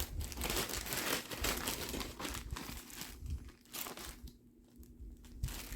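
Crinkling and rustling as fabric pieces, and possibly their plastic wrapping, are handled and shuffled, busiest for the first three seconds and then sparser.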